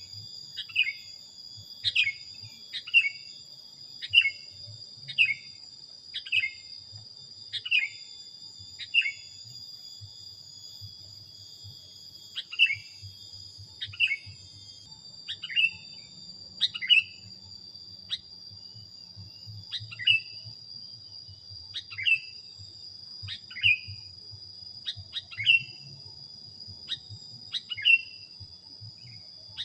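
Sooty-headed bulbul (kutilang) giving short, sharp chirps about once a second, each dropping quickly in pitch, with a pause of a couple of seconds about a third of the way in. A steady high-pitched whine runs underneath.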